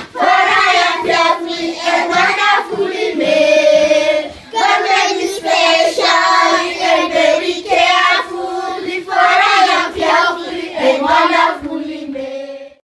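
A group of children singing together, with a short break between phrases about four seconds in; the singing cuts off abruptly shortly before the end.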